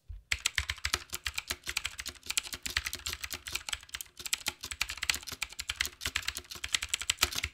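Typing on an aLLreLi K643 mechanical keyboard with Outemu blue switches: a fast, continuous run of key clicks from the tactile switches with their audible click, starting about a quarter second in.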